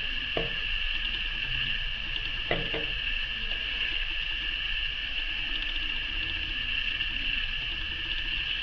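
Steady high-pitched whine with a low hum under it, and two soft taps of craft materials being handled, about half a second in and about two and a half seconds in, as a strip of EVA foam is glued on.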